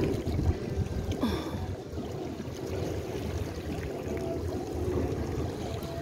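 Shallow seawater lapping and trickling over pebbles at the water's edge, over a steady low rumble.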